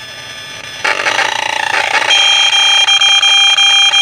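Handheld RF radiation meter's alarm sounding: it comes on about a second in as a rapidly pulsing electronic tone and turns into a steady, high-pitched tone from about two seconds in, as loud as it can go. It signals a maxed-out reading of microwave radiation from the Wi-Fi and Bluetooth just switched on.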